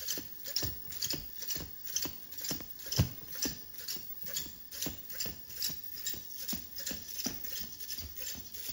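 Small quadruped robot walking on a laminate floor, its feet tapping in a steady rhythm of about two to three steps a second, with one louder knock about three seconds in.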